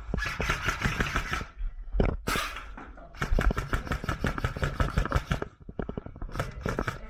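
Airsoft guns firing in rapid bursts of shots, three runs in all, the longest about two seconds. A short, loud hiss comes between the first two bursts.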